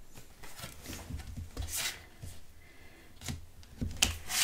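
Paper oracle cards being handled and laid on a table: soft rustles and scrapes, with a sharper tap about four seconds in as a card is set down.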